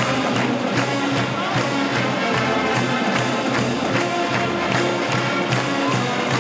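Upbeat music with a fast, steady beat, about two and a half beats a second, under held melody notes.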